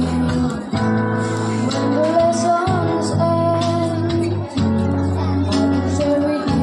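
A children's choir singing a song together, with an instrument accompanying.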